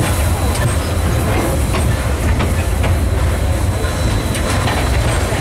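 Heritage steam train's carriages rolling along the track: a steady low rumble with scattered clicks and knocks from the wheels.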